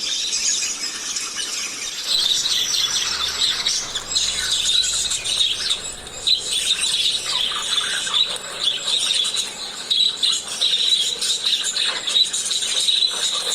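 A group of small pet parrots kept as love birds, chattering nonstop with dense, high-pitched squeaky calls and chirps.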